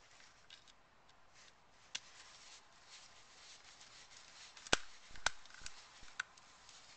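Small Phillips screwdriver driving the case screws into a plastic BBQ lighter: faint handling and scraping with a few sharp plastic clicks, the two loudest close together a little past the middle.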